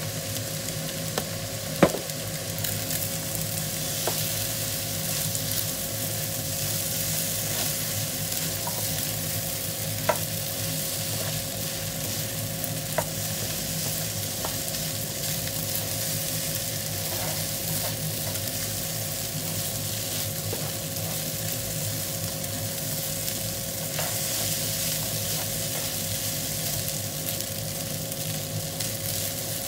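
Fried rice with egg, cabbage and komatsuna sizzling steadily in a nonstick frying pan as it is stirred and turned with a spatula, with a few sharp clicks of the spatula against the pan, the loudest about two seconds in.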